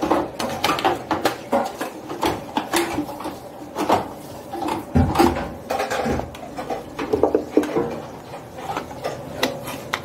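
Irregular clicks, knocks and rattles of hands handling the opened front-load washing machine and its plastic and sheet-metal parts.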